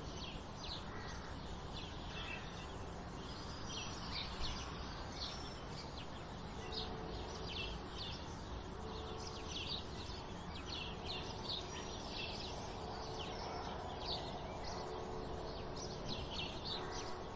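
Dawn chorus of sparrows and other small birds: many short, high chirps overlapping throughout, over a steady low background rumble. A faint steady hum joins about seven seconds in.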